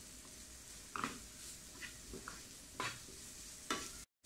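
Wooden spatula scraping and tapping against a nonstick frying pan while stirring frying shallots and tomato with spice powders, over a faint sizzle. Three sharper scrapes come about one, three and four seconds in.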